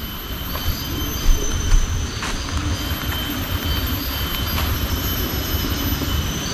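Tropical forest ambience: a steady high-pitched insect drone over a low rumble from walking and wind on the microphone, with a few sharp snaps of twigs and leaves underfoot.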